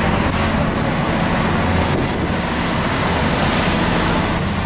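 A dive boat's engine running steadily under way, a low even hum, with water rushing and splashing along the hull and wind buffeting the microphone.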